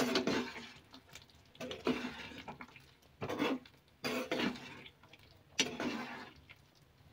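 Spoon stirring thick pea-and-paneer curry in a kadai: several separate wet scraping and sloshing strokes against the pan, each fading quickly.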